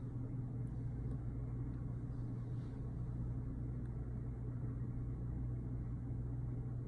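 Steady mechanical hum with a constant low drone that does not change.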